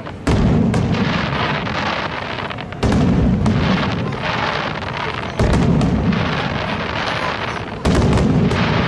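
Aerial firework shells bursting: four heavy booms about two and a half seconds apart, each trailing off in a long rumble with crackling.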